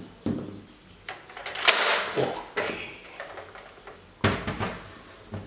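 Hard plastic Nerf toy blasters and their parts being handled and set down on a table: a handful of clicks, knocks and scrapes, loudest about two seconds in.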